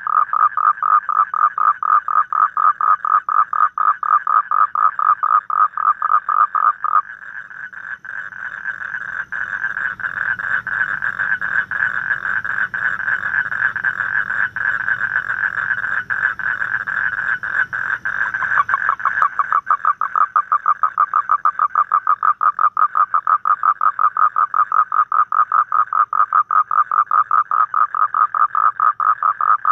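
Asian common toad calling: a long, rapid pulsed trill. About a third of the way in, the pulses run together into a smoother, denser trill for about ten seconds, then the distinct pulsing returns.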